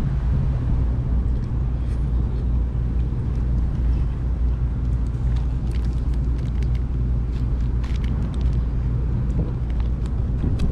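Steady low rumble of wind buffeting the microphone, with a few faint crackles in the second half.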